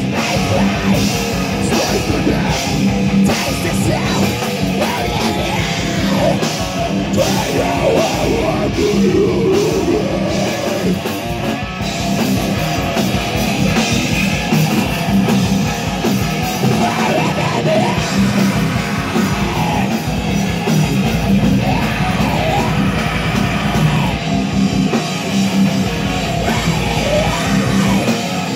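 Live heavy metal band playing loud: distorted electric guitars and a drum kit, with yelled vocals over them.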